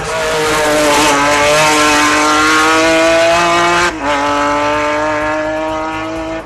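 Race car engine at high revs under hard acceleration, its pitch slowly climbing. About four seconds in it breaks off suddenly for a gear change, then pulls on more quietly.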